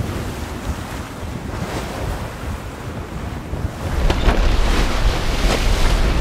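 Wind and sea rushing past a Contessa 35 sailing yacht heeled over in heavy swell, with wind buffeting the microphone. About four seconds in it gets louder, with a few splashes of spray off the hull.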